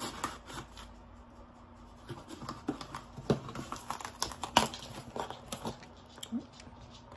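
Irregular light taps and clicks of things being handled on a table, a few at a time, with one sharper knock about halfway through.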